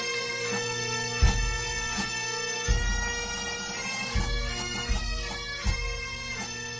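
Bagpipe playing a melody over a steady drone, with about five loud bass drum beats at uneven intervals.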